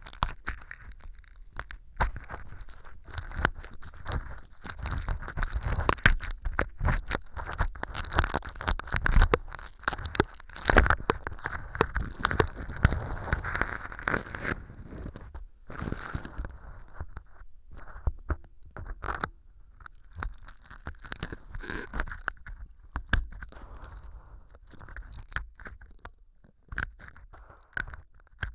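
Stainless steel ear pick scraping and crackling through fake earwax made of styrofoam powder and sawdust, inside a transparent ear-canal tube. It makes dense, crunchy crackles that are busiest in the first half and grow sparser toward the end.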